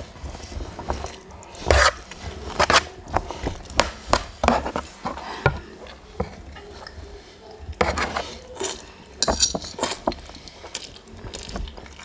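Close-up eating sounds of Samyang spicy instant noodles: noodles sucked in and chewed, with a metal spoon and chopsticks clicking now and then against a bowl and a metal tray.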